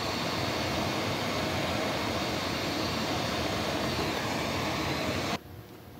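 Heat gun blowing steadily, shrinking heat-shrink tubing over soldered wire joints; it is switched off and cuts out abruptly near the end.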